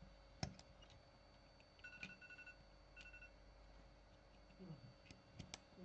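Near silence with faint handling clicks of a metal phone-board fixture and small parts being set down, a few short faint electronic beeps about two seconds in and again at three seconds, over a steady low hum.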